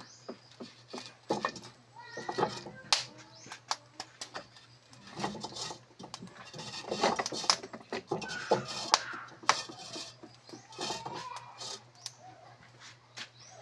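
Metal spatula scraping and knocking against a wok: irregular clicks and scrapes, busiest in the middle. A few brief animal calls sound in the background.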